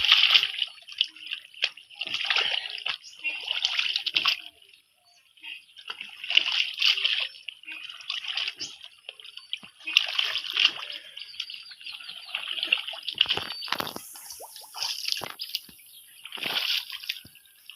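Shallow water splashing and sloshing in irregular bursts as hands grope through it for fish, with a short lull about five seconds in.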